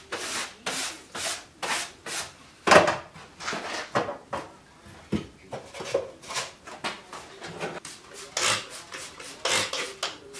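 Short scraping and rubbing strokes, two or three a second at first and then irregular, with one louder knock about three seconds in, as clutter is scraped and shifted while a workshop is cleared out.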